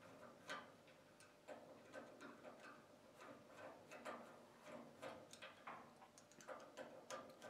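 Faint, irregular light clicks and taps, several a second at times, of small gas stove parts being handled and fitted.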